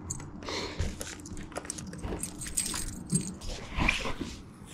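Baitcasting reel cranked during a lure retrieve: irregular small clicks and rod-handling noise.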